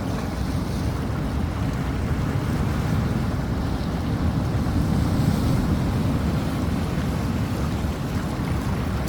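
Rough sea surf breaking steadily, a deep continuous roar that swells a little louder about halfway through, with wind buffeting the microphone.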